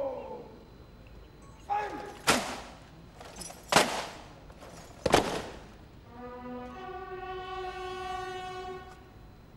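Three loud, sharp bangs about a second and a half apart, each echoing briefly. Then brass music starts with long held chords.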